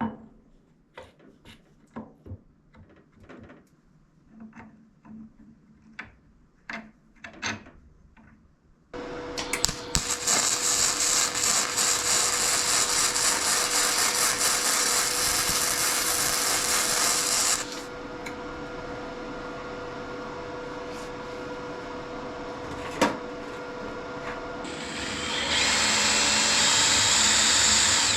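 A few seconds of scattered clicks and knocks, then a power tool starts suddenly and runs loudly for about nine seconds. It drops to a quieter steady running with one sharp knock, and grows louder again near the end.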